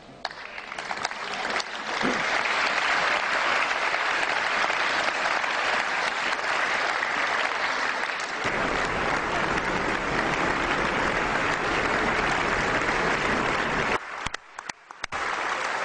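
A large audience applauding, swelling over the first couple of seconds into steady, dense clapping. It dips abruptly for about a second near the end.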